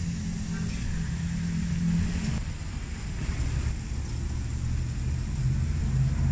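A motor vehicle's engine running at low revs: a steady low hum whose pitch shifts twice, once about two and a half seconds in and again near the end.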